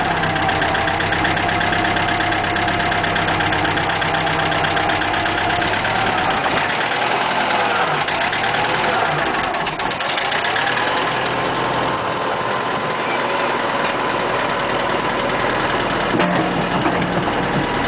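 1976 International 2412 backhoe's engine running steadily at idle, with a pitched tone that dips and then rises again between about six and twelve seconds in.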